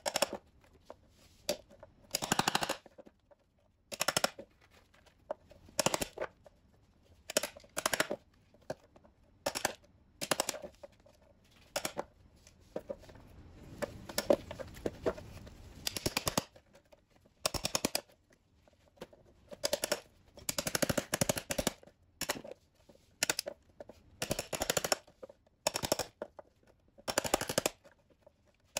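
A claw hammer taps a metal chisel into hard, dried chaga fungus and strikes the chunks directly on a wooden board, breaking them up. It comes as quick runs of sharp knocks, a burst every second or two, with a few seconds of softer hissing noise around the middle.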